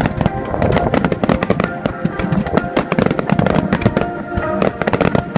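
Fireworks finale barrage: dense, rapid bangs and crackles, many per second with no pause, while music with steady held notes plays along.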